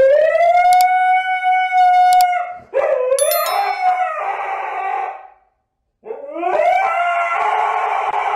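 A dog howling in long drawn-out calls, each rising in pitch and then held. Two come back to back, then after a short pause a third begins.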